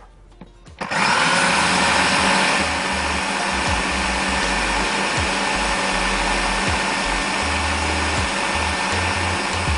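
Electric food processor switched on about a second in and running steadily, its blade whipping a thick, creamy mango ice-cream mixture.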